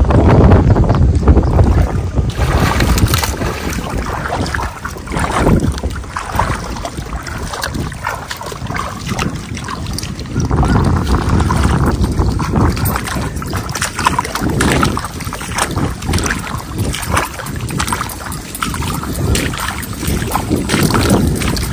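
Wind buffeting the microphone: a loud, low rumbling noise that swells and eases, with scattered small knocks and rustles.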